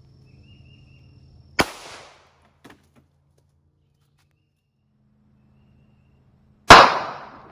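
Two shots from a North American Arms Pug .22 Magnum mini revolver firing polymer-tip varmint rounds, about five seconds apart, the second louder.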